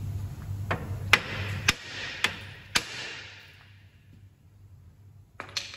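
Hammer striking the steel front suspension beside the lower ball joint of a VW Polo: about five sharp metal-on-metal whacks, roughly half a second apart, each ringing briefly. The hits crack the seized ball joint loose so it can drop out. One further knock near the end.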